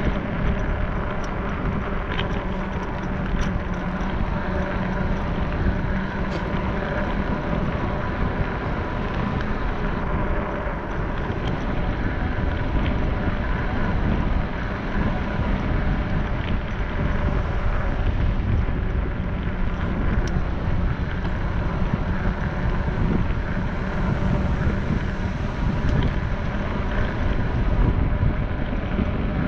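Steady rumble of a moving vehicle, with wind buffeting the microphone and a faint steady hum.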